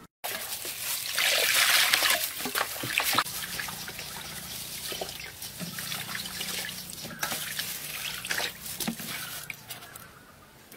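Water splashing and sloshing in a metal basin as whole plucked chickens are washed by hand, loudest about a second in, then lighter sloshing with small knocks and drips.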